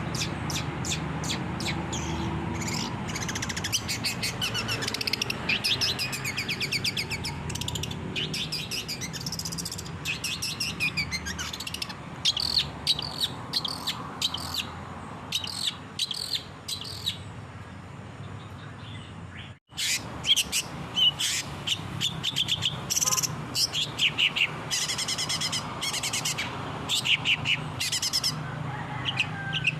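Long-tailed shrike (cendet) singing a fast, chattering song of rapid repeated chirps over a steady low hum. The song cuts out for an instant about two-thirds of the way through.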